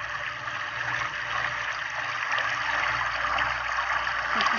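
Water from a garden hose running steadily, splashing over a wet dog's coat and into a metal basin.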